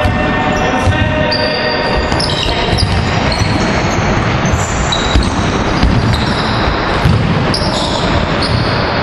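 Basketballs bouncing on a hardwood gym floor and sneakers squeaking in short high chirps, amid the echoing din of a basketball practice in a large gym.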